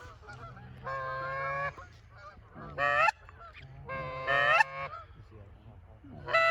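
Canada goose honks, close by: a long, level call about a second in, then three shorter honks that break upward in pitch, the last one near the end.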